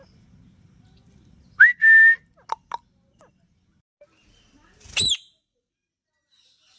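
Ringneck parrot whistling: a short rising note into a held whistle, then two quick chirps, and about three seconds later one loud call.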